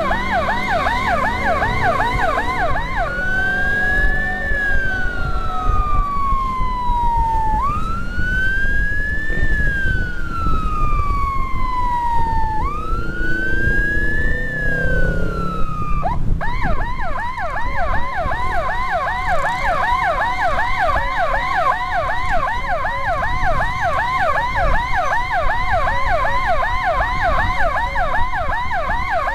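Electronic emergency siren on the ambulance escort, sounding a fast yelp that switches about three seconds in to a slow wail rising and falling three times, then returns to the fast yelp about sixteen seconds in. Road and wind rumble from the moving motorcycle runs underneath.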